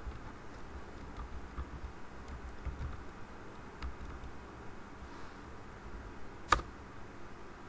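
Typing on a computer keyboard: scattered faint key clicks over a low steady hiss, then one much louder, sharp click about six and a half seconds in.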